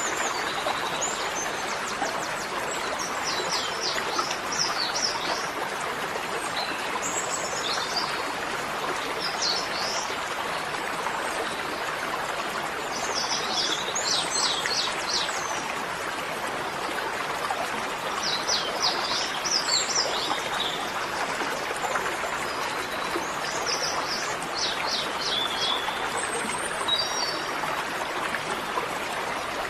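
Small birds singing short, quick chirping phrases every few seconds over a steady rushing sound of flowing water.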